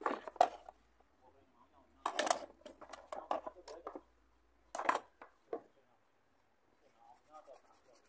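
Hard plastic knocks and clattering as a broken car air filter box housing is handled and turned over, in several short clusters. Near the end comes faint scraping as a tool works at the box's inlet spout.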